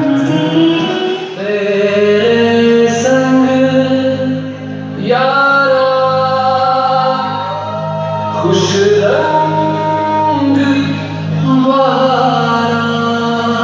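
Music playing: a song with a singing voice and long held notes, no clear beat.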